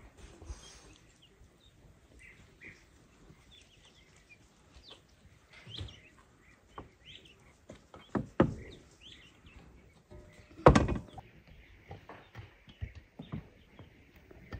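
Food-preparation handling sounds: soft rustles of cabbage leaves with a few sharp knocks and clatters of dishes or utensils, the loudest near eight and a half seconds and eleven seconds in, the second with a brief metallic ring. Birds chirp faintly in the background.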